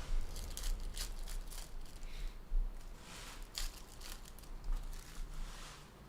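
Foil trading-card pack wrappers crinkling and tearing as packs are opened by hand, in a string of short, crisp rustles.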